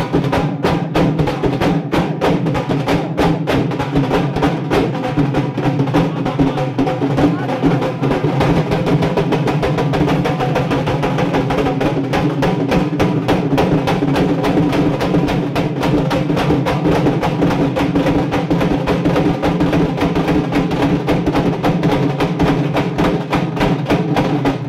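Several dhols played together with sticks in a fast, steady rhythm of dense strokes, sharp clicks over the deeper drum beats.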